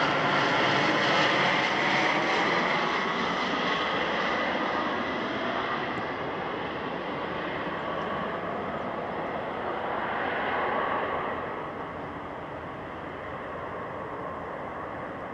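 Dassault Falcon 900 business jet's three turbofan engines on final approach, a steady jet noise that gradually fades as the aircraft flies away. It swells briefly about ten seconds in, then drops lower.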